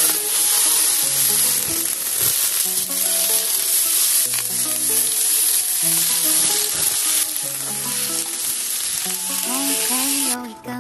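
Food sizzling as it fries in hot oil, a loud steady sizzle that stops abruptly shortly before the end, over background music with steady low notes.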